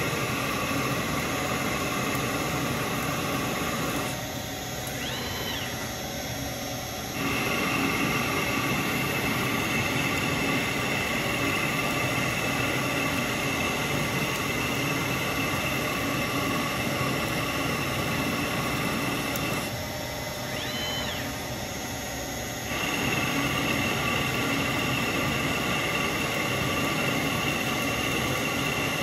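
Shopmaster Mill Turn CNC lathe turning a 1-inch aluminium rod dry, with no lubricant: a steady running noise of spindle and cut with a whine in it. Twice it goes quieter for about three seconds, with a short whine that rises and falls.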